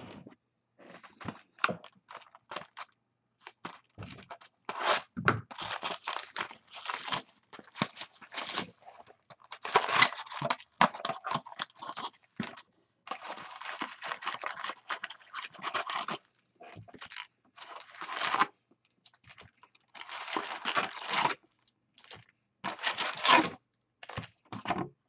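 Clear plastic shrink-wrap being torn and crinkled off a sealed Valor football card box, in irregular bursts of rustling, followed by the cardboard box being opened.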